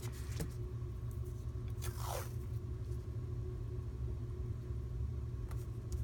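Washi tape being unrolled and pressed down along a kraft paper bag: soft paper and tape handling with a brief scrape about two seconds in, over a steady low background hum.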